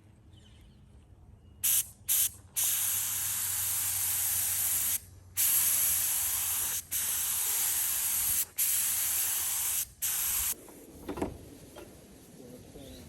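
Paint spray gun hissing as the trigger is pulled again and again: two short bursts, then several longer sprays of one to three seconds with brief breaks, stopping about ten and a half seconds in, with a couple of faint knocks after. The gun is being tested for good paint flow.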